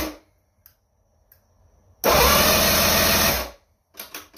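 Electric starter of a Mercury inline outboard cranking the engine from the key switch: a first crank cuts off at the very start, then a second crank about two seconds in lasts about a second and a half and stops abruptly. The cranking shows that the newly wired key switch's start circuit works. A few light clicks near the end.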